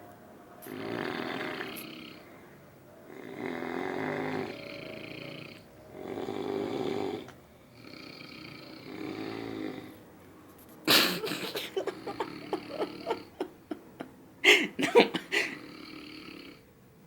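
Snoring: four long, rasping snores about two and a half seconds apart, then a choppy run of short, sharp snorts from about eleven seconds in, with a few loud ones near the end.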